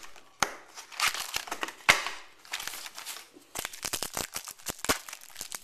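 Baseball card packaging being opened by hand: wrapper crinkling and tearing with irregular rustles and sharp clicks, the loudest a sharp crackle about two seconds in.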